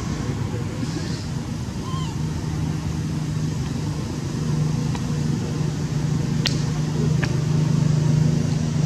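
A steady low motor hum, growing a little stronger partway through, with two sharp clicks near the end.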